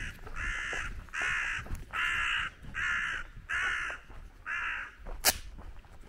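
A crow cawing in a steady series of about seven calls, roughly one every 0.7 seconds, stopping about five seconds in. A single sharp click or knock follows just after.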